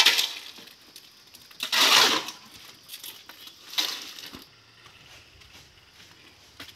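A shovel scraping through wet concrete mix on the ground and tipping it into a metal pan: three gritty scrapes, the middle one the loudest and longest.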